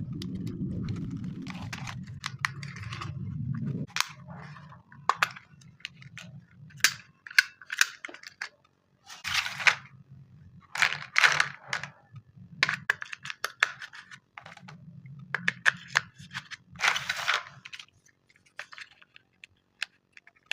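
Handling noises: sharp clicks, snaps and short rustling bursts, scattered irregularly. A low steady rumble under them stops about four seconds in.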